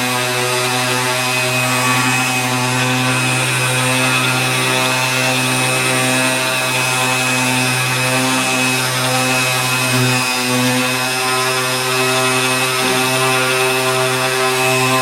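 Electric sander running steadily as it smooths the rough edges of a sheet of plywood, with a brief dip about ten seconds in.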